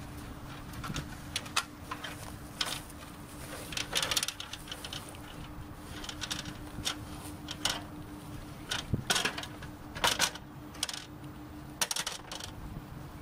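Irregular clicks, taps and knocks of gear being handled close by, over a faint steady hum.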